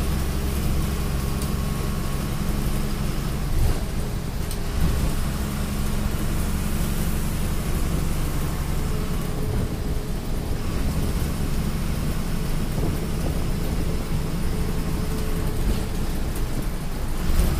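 Steady rumble of a vehicle travelling on a highway, heard from inside: low engine drone with road and wind noise, and a few brief knocks from bumps.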